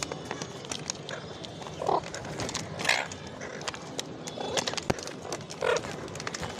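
Green parakeet giving four short, harsh calls amid frequent small clicks and taps.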